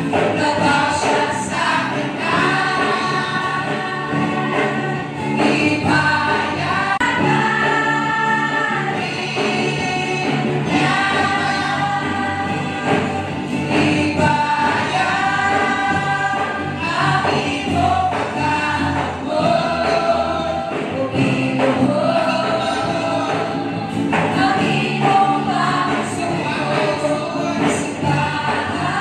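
A group of voices singing a Christian song together, with music, in sung phrases that run on without a break.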